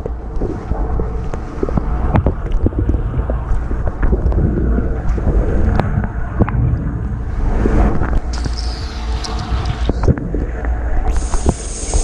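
A portable dishwasher's wash cycle heard from inside the tub: a steady low motor rumble under splashing spray water, with many sharp taps of water striking the racks and the camera. A steady high hiss comes in about eleven seconds in.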